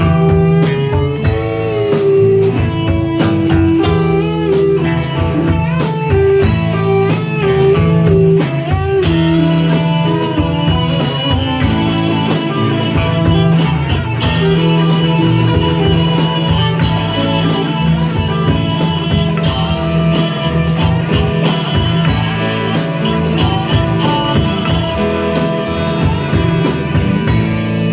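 A band playing blues-rock: an electric guitar solo with bent notes over bass and drums.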